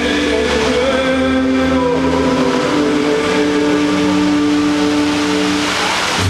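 Music played over a choreographed musical fountain's loudspeakers, slow long held notes, over the steady hiss of the water jets spraying.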